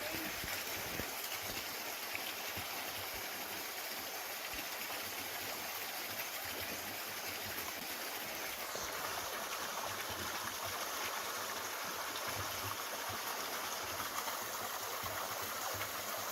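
River water flowing over rocks: a steady rush of running water.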